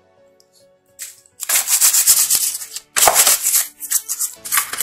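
Paper-feed rollers and gear train of an Epson L-series inkjet printer turned by hand, giving a rasping, clicking rattle in several bursts that starts about a second and a half in.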